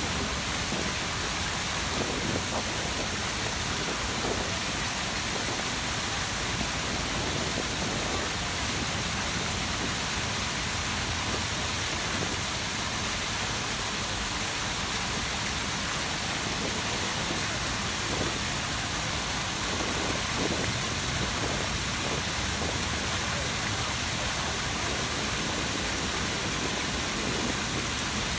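Water of the Grand Cascade fountains, the tall Samson fountain jet and the surrounding spouts and cascades, splashing steadily down into the basin as an even, continuous rush.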